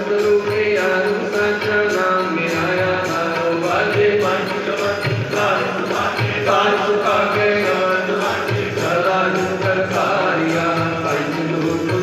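Music with a voice singing or chanting over a sustained drone and a steady, evenly spaced beat.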